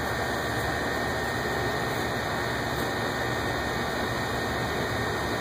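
Steady hiss and low hum of room ventilation running, with no distinct events.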